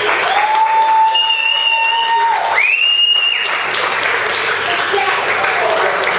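A crowd cheering and clapping. Several long, steady high calls ring out over the applause in the first half.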